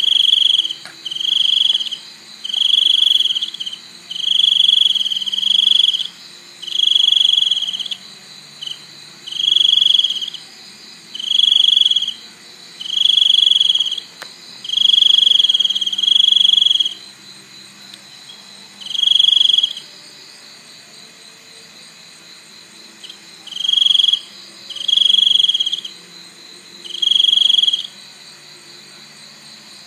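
A cricket chirping in loud, high trills about a second long, repeated every second or two, with a pause of several seconds past the middle. A fainter, steady, higher-pitched insect drone runs underneath.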